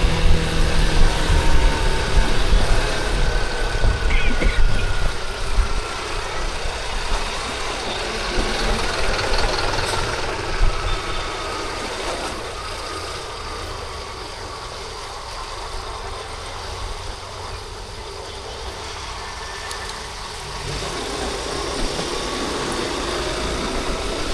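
Yamaha Crosser 150's single-cylinder engine and surrounding city traffic heard from the rider's seat, with a heavy low rumble over the first few seconds that fades to a quieter, steady level from about halfway.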